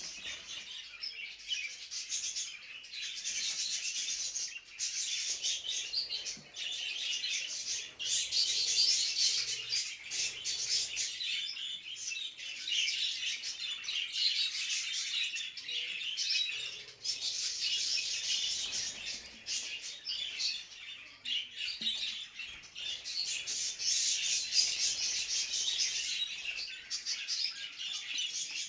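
Budgerigars chattering and warbling continuously, a dense stream of rapid chirps and clicks: the courtship chatter of budgies in breeding condition.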